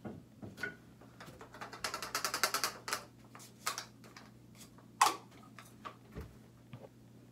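Hard plastic clicking and rattling as a toothbrush and its plastic case are handled: a quick run of rapid clicks about two seconds in, then one sharp, louder click about five seconds in, with a few light knocks around them.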